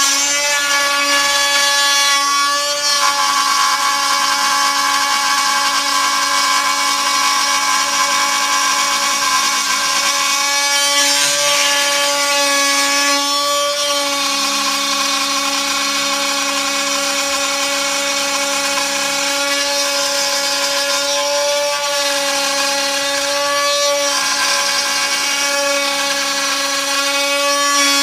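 Desktop CNC 3020 router milling a wooden floorboard: the spindle gives a steady high whine over the noise of the bit cutting the wood, the pitch wavering slightly now and then.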